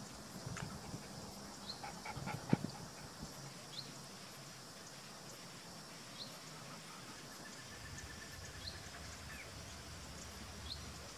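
Outdoor ambience: a bird gives a short, rising chirp about every two seconds over a steady high insect hum. A few knocks and a brief louder call come about two seconds in, and a thin trill runs around eight seconds in.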